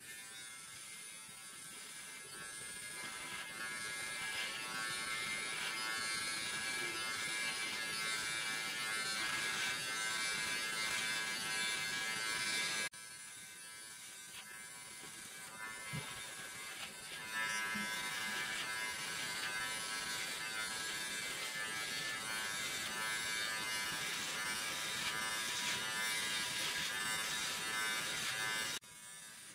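Clikon cordless hair trimmer running with a steady buzz as it cuts beard stubble along the neck and jaw. The buzz drops sharply about 13 seconds in, comes back about four seconds later, and drops again near the end.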